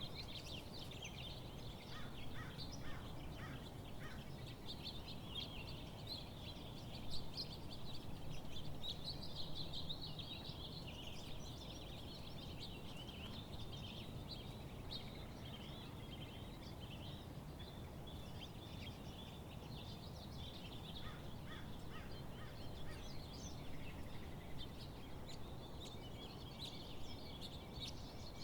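Many birds singing and chirping at once in a continuous, busy chatter, with short runs of lower repeated notes twice, over a steady low background rumble.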